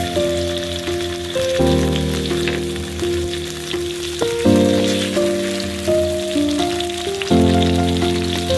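Onions and tomatoes sizzling in hot oil in a steel wok, under background music: a melody over chords that come in about every three seconds.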